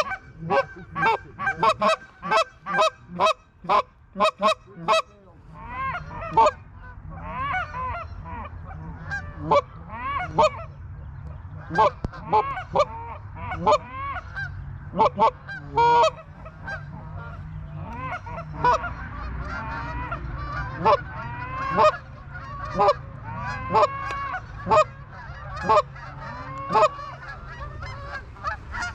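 Geese honking: a fast, even run of short honks at about three a second for the first five seconds, then many overlapping calls from a large flock. A low steady rumble runs under the calls from about five seconds in.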